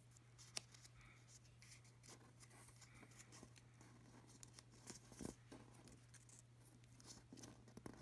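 Faint rustling and soft crinkling of a square of origami paper being folded and creased by hand, with a couple of sharper ticks, over a low steady hum.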